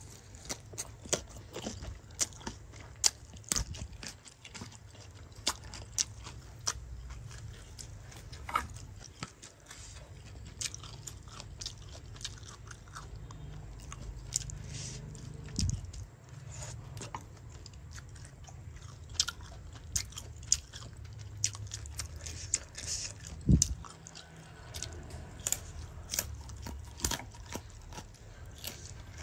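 Close-up eating sounds: someone biting and chewing fried pig intestine, with many short crunchy clicks at irregular intervals over a steady low hum.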